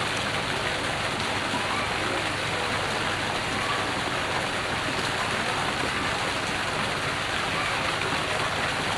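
Fountain water splashing steadily into a stone pool, an even hiss.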